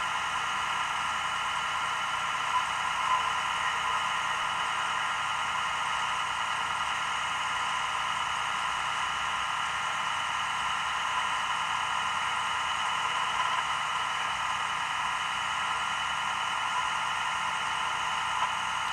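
Steady hiss with faint whining tones through it, even in level throughout and without distinct knocks or voices.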